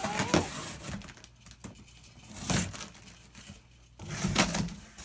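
A cardboard shipping box being torn open and its packing material handled, with irregular bursts of tearing and crinkling, loudest near the end.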